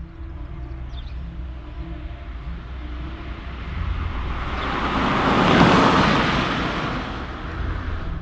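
A steady low drone with a rushing noise that swells up, peaks about two-thirds of the way through, and then dies away, like a whoosh going by.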